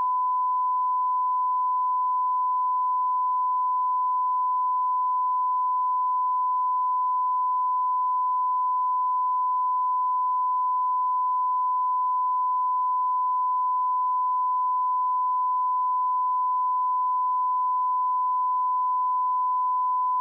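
A steady, unbroken 1004 Hz sine-wave test tone, one pure pitch held at a constant level.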